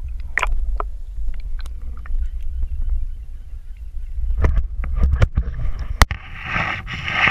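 Sea water sloshing and rushing against an action camera's waterproof housing at the surface: a steady low rumble with sharp knocks, and a loud hissing splash from about six seconds in.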